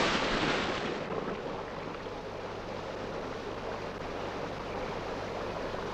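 Rushing water of a waterfall pouring into a river, a steady hiss. A big splash into the water fades out over the first second or so.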